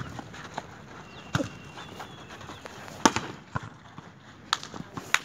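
A volleyball being struck by hands during a rally: sharp slaps a second or so apart, five in all.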